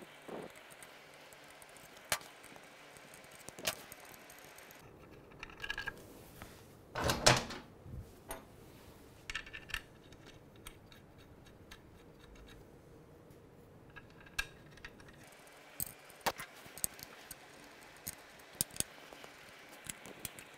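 Scattered small metallic clicks and clinks of steel bolts and special tools being unscrewed, lifted out and threaded by hand on a motorcycle clutch pressure plate, with one louder metal clatter about seven seconds in.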